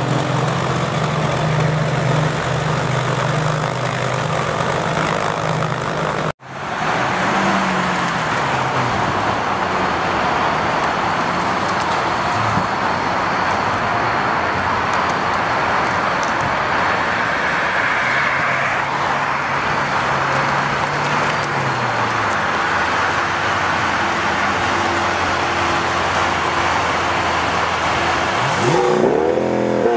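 Car engines running steadily under a continuous rushing noise, with a brief cut about six seconds in. Near the end an engine revs up, rising in pitch.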